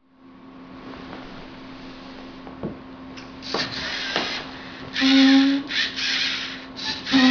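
LEGO Mindstorms NXT robot's servo motors whirring in short stop-start bursts as the robot turns and drives its pen across the paper, starting about halfway through; the burst about five seconds in is the loudest. Before that, only a faint steady hum.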